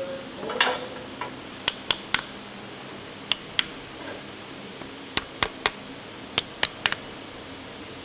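Metal parts of a StuG III transmission clinking and tapping as they are handled: a brief scrape about half a second in, then a dozen or so sharp clinks in irregular pairs and threes.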